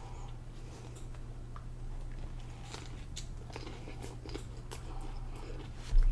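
Close-miked chewing of a cod burger: scattered soft, wet clicks and crunches over a steady low hum. There is a sharp low thump near the end.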